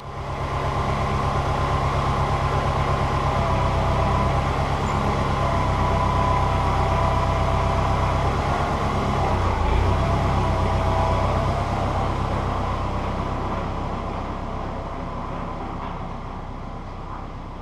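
Tractor engine running while the front loader lifts the new hay grapple, with a steady higher whine over the engine note. The sound dips and shifts briefly about ten seconds in and eases off near the end.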